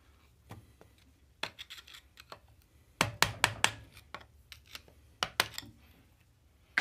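Open-end wrench clinking on the steel lock ring of a Yamaha Zuma's steering stem as the ring is worked loose: scattered metal clicks and taps in a few short clusters, the busiest about three seconds in.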